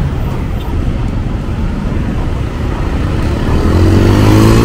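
Street traffic noise, with a vehicle engine nearby rising in pitch and getting louder over the last second or so as it accelerates.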